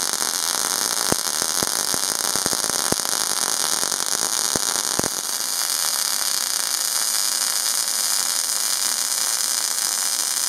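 MIG/MAG welding arc in short-circuit transfer on 0.8 mm steel sheet: a loud, steady crackling hiss. Sharp pops stand out through the first half, the bead with inductance at minimum and more spatter. About five seconds in, the sound turns to a smoother, even hiss, the bead with inductance at maximum, which limits spatter.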